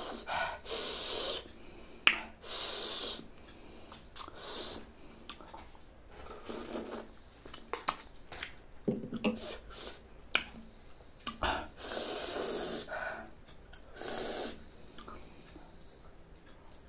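Close-up eating sounds of passion fruit pulp being sucked and slurped from the shell and off a spoon: a series of separate hissing slurps, with a few sharp clicks between them.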